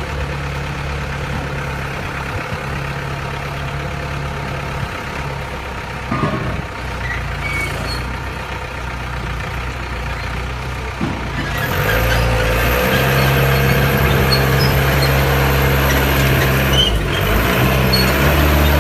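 Engine of a Hengxing HXM series mini pile driver running steadily, with a brief knock about six seconds in; about twelve seconds in it takes on load and runs louder.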